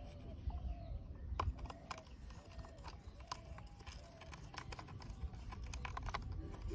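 Small screwdriver turning a screw into the plastic underside of a toy CNG auto rickshaw: irregular light clicks and scrapes of the metal tip in the screw head and against the plastic.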